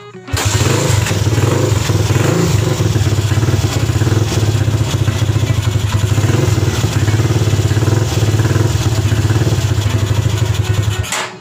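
Racal 125 dirt bike's air-cooled single-cylinder engine running steadily, cutting off suddenly near the end. The owner judges the engine to be in okay shape.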